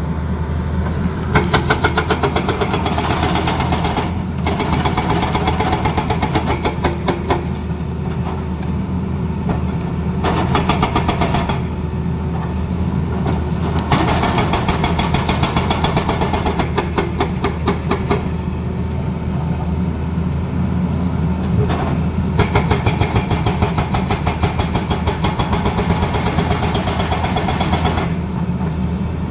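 Tata Hitachi crawler excavator's diesel engine running under load while its hydraulic rock breaker hammers a rock face. The breaker fires rapid, evenly spaced blows in several bouts separated by short pauses.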